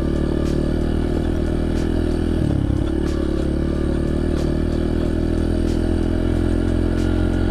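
Honda CRF100F dirt bike's small single-cylinder four-stroke engine running at a steady pace, its pitch dipping briefly and recovering about two and a half seconds in, with a light clatter of small ticks over it.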